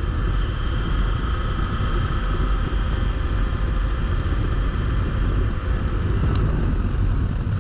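Adventure motorcycle cruising steadily at about 45 mph: engine and road noise with a deep, steady rumble.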